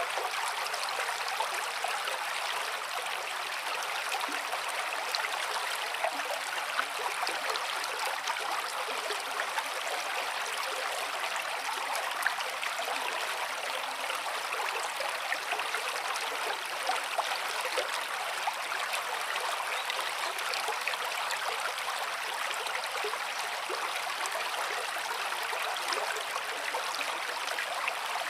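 Running water of a small stream, a steady babbling rush with small splashes and trickles.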